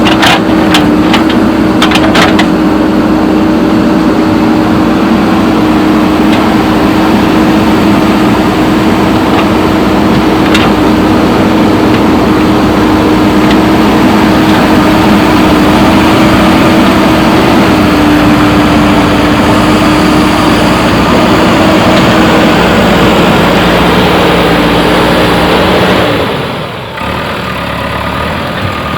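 JCB backhoe loader's diesel engine running at a steady, loud pitch, with a few sharp knocks in the first couple of seconds. About 26 seconds in, the sound drops suddenly and becomes quieter.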